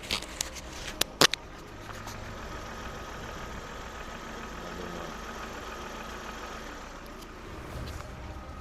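Lada Vesta engine idling warm, with a light steady knock that the owner takes for piston knock rather than hydraulic lifter tick. A few sharp taps, like footsteps, in the first second or so.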